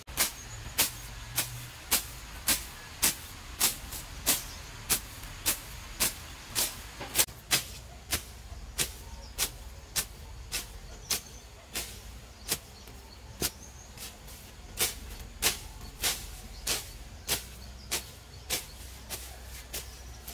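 A hand tool striking wood in a steady rhythm of sharp blows, about three every two seconds, with a short pause about two-thirds of the way through.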